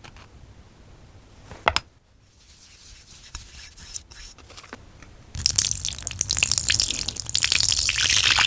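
Slime being squeezed and kneaded by hand close to the microphone: soft scattered ticks and a sharp pop a little under two seconds in, then about three seconds of loud, dense wet crackling and popping near the end.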